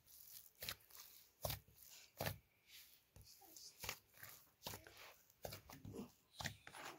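Hands kneading a large mass of bread dough in a plastic basin: a short soft slap each time the dough is pressed and folded, repeating about once every three-quarters of a second.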